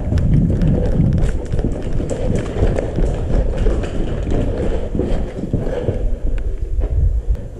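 Footsteps of a person running, a quick uneven series of thuds with gear jostling, over a heavy low rumble on the microphone.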